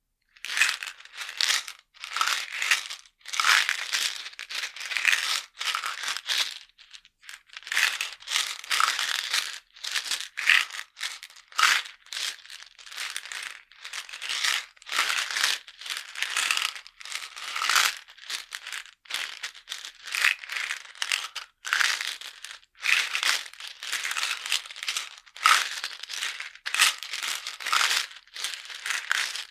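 Vitamin tablets rattling in a jar and medicines shaken in a box, in a long run of short irregular shakes, each half a second to a second and a half, with brief pauses between.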